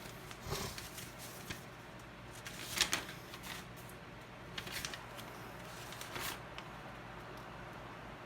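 Paper and cardboard packaging handled, a few brief rustles a second or two apart.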